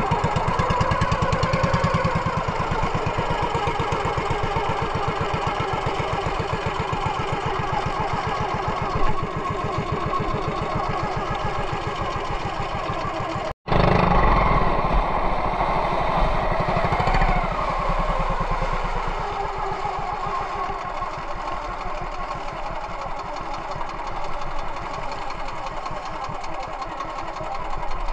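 Motorized outrigger boat's engine running steadily under way, with water splashing along the hull. The sound breaks off for a split second about halfway through.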